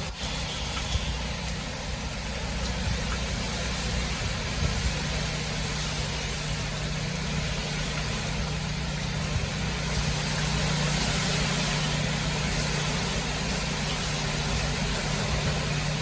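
A motor running steadily, a low hum with a constant tone under an even hiss.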